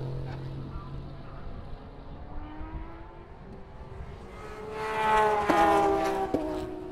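Race car engines at speed: one fades away after passing, a distant one rises in pitch as it accelerates, then another race car approaches and passes loudly about five seconds in, its note dropping slightly as it goes, with two sharp cracks near the end.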